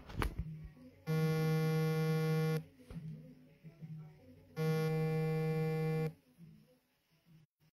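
An electronic buzzing tone of fixed pitch sounds twice, each about a second and a half long, with a pause of about two seconds between.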